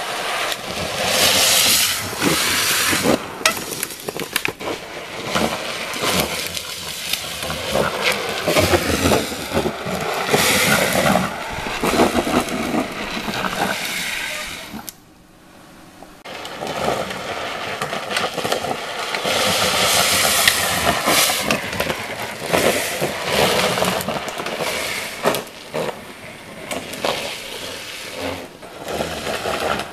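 Drift trikes sliding downhill, their rear wheels scraping and grinding across the asphalt in several loud passes that swell and fade, with a brief quieter gap about halfway.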